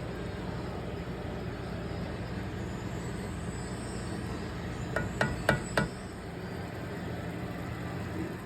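Steady low kitchen hum. About five seconds in come four quick, ringing clinks of hard kitchenware struck together.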